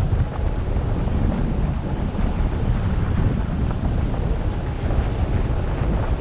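Wind noise from hang glider flight: the airflow buffets the wing-mounted camera's microphone in a steady low rumble with no breaks.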